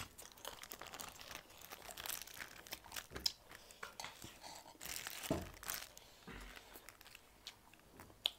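Thin plastic bag of sauce crinkling and crackling as it is picked up, squeezed and handled, with quiet eating sounds.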